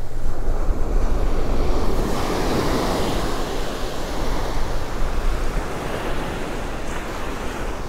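Surf breaking and washing up a sand beach, one wave rising to its loudest about three seconds in, over a steady low rumble of wind on the microphone.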